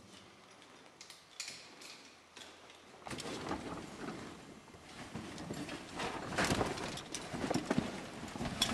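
A caver's oversuit and gear rustling and scraping against the rock as he crouches and squeezes into a narrow rift, with sharp clicks and knocks of gear and boots on stone. Only scattered clicks at first, turning into steady scraping and clattering about three seconds in.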